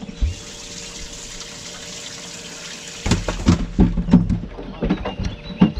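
Water running steadily into a bass boat's livewell for about three seconds, then a quick series of knocks and thumps as the bass is put in and handled in the livewell.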